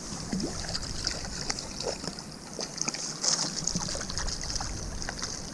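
Creek water running steadily, with scattered splashes as a hooked brook trout thrashes and is scooped into a landing net.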